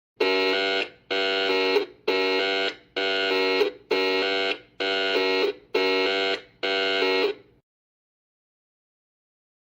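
Emergency alarm buzzer sounding eight identical buzzy beeps, each a little under a second long and a little under a second apart, each ending in a short fading tail.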